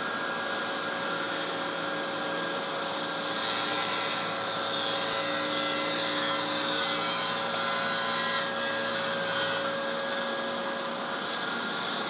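Festool CSC SYS 50 cordless table saw running steadily with its dust extractor, ripping a scrap plywood board along the fence.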